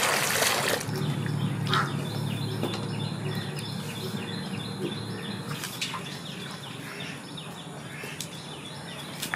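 Water splashing into a well of flour for about the first second, then a metal spatula stirring flour in a metal bowl with a few scrapes and knocks. A bird chirps over and over in the background.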